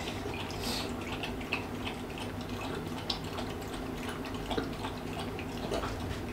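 French bulldog eating wet homemade food from a bowl: irregular wet smacking, licking and chewing clicks.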